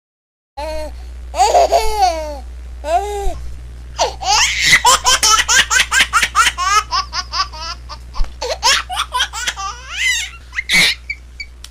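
Baby laughing: after a brief dead gap at the start, a couple of drawn-out squealing laughs, then a long run of rapid giggling bursts, several a second. A steady low hum sits underneath.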